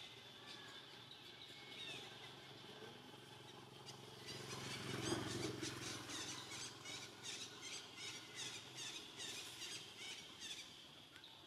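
Faint outdoor ambience of high, chirping animal calls, with a run of quick chirps, about three a second, in the second half.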